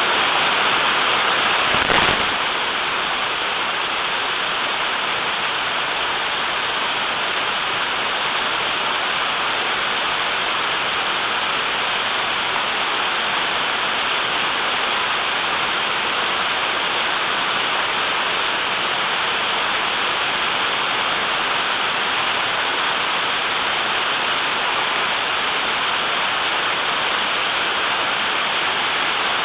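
Small waterfall on a river, water falling hard in a steady rush. A brief thump about two seconds in.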